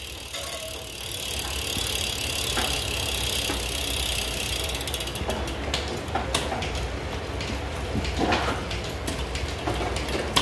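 Merida Scultura road bike's drivetrain spun by hand on a repair stand: the chain runs over the rear cassette and derailleur with a few clicks as gears shift, and in the second half the rear hub's freewheel ticks rapidly. The rear derailleur is being re-tuned; its limit screw had been moved, so the low gears would not shift up.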